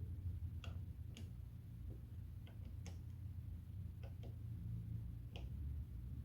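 Scattered small clicks and taps, about seven, irregularly spaced, from metal pump parts and tools being handled during reassembly. A steady low hum runs underneath.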